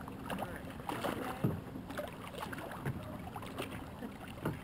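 Water splashing and lapping around kayak hulls, with scattered light knocks of paddles and hulls against each other.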